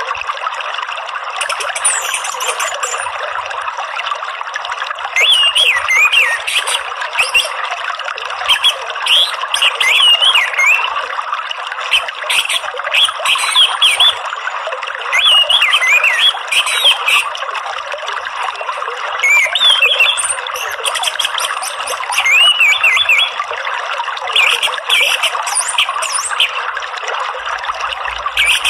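Orange-headed thrush (anis merah) singing in bursts of quick, varied whistled phrases with short pauses between, over a steady sound of running water.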